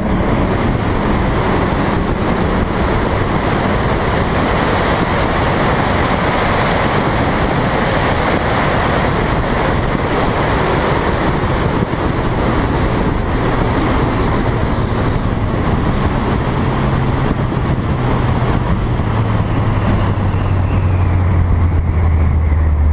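Car at high speed heard from inside the cabin: loud, steady wind and road rush over the engine after a hard acceleration. In the second half the engine's low note slowly drops in pitch as the car eases off and slows.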